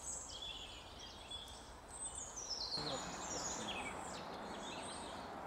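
Woodland birdsong: several short high songs and calls, with a quick descending trill about two to three seconds in, over a steady background hiss.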